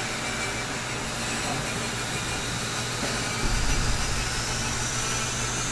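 Steady background noise with a low thump about three and a half seconds in, as an athlete kicks up into a handstand against a wall.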